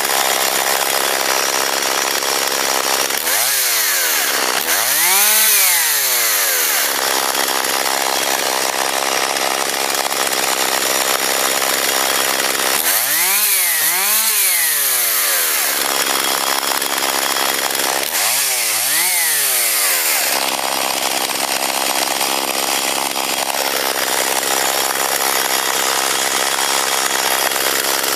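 Stihl two-stroke chainsaw engine running steadily at idle while a small fire burns on its housing. It is revved up and down twice in quick succession three times: about 4 s in, around 14 s and around 19 s.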